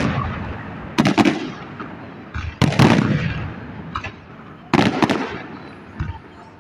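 Fireworks display: three big shell bursts about every two seconds. Each is a loud bang with a couple of quick cracks and a long, fading echo, with fainter pops in between.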